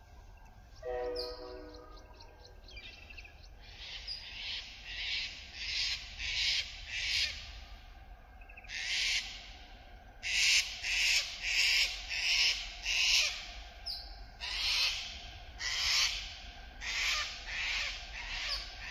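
Sulphur-crested cockatoos screeching: harsh, rasping calls in quick runs, one after another, getting louder from about four seconds in. The birds have been disturbed by an approaching freight train.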